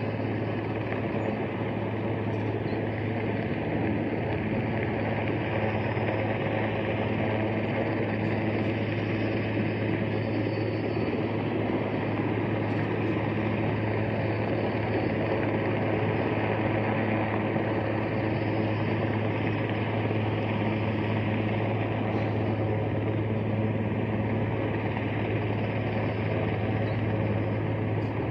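Helicopter hovering, a steady unbroken drone with a strong low hum.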